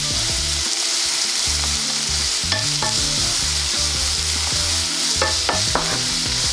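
Julienned carrots frying in vegetable oil in a non-stick pan, a steady sizzle, stirred with a wooden spatula that clicks against the pan a few times, about two and a half and five and a half seconds in.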